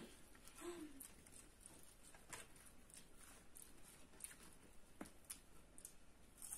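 Near silence with a few faint, scattered clicks and taps of people eating: spoons and fingers against bowls and foil food containers.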